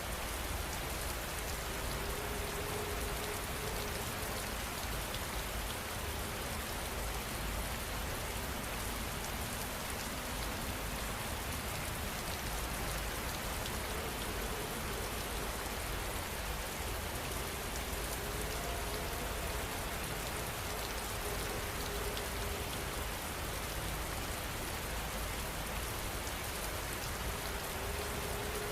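Heavy rain falling steadily, an even hiss of drops on surfaces with no thunder.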